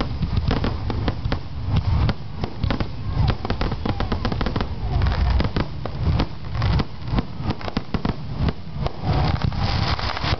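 Fireworks going off in quick succession: a dense, unbroken run of sharp cracks and deep booms.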